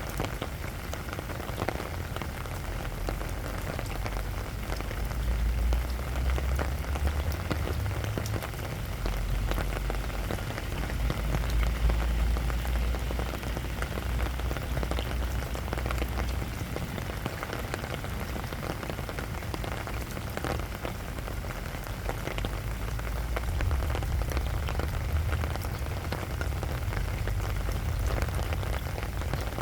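Steady rain falling on sandy ground, an even patter of many small drop ticks, with a low rumble underneath that swells and eases.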